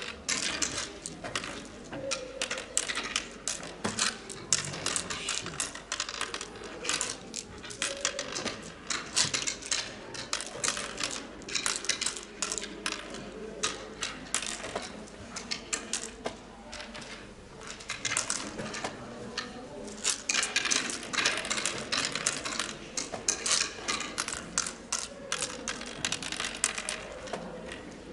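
Oware seeds clicking and rattling as they are dropped one by one into the pits of a wooden oware board, in quick runs of clicks with short pauses between moves.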